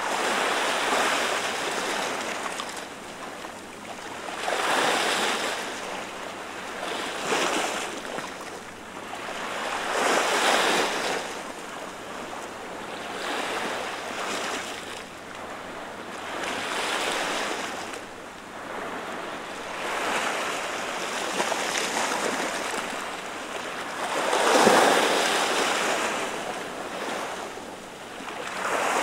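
Small waves washing in over the flat rocks of a breakwater, each one a splashing, hissing surge of foam that swells and fades every two to three seconds, with one stronger wash near the end.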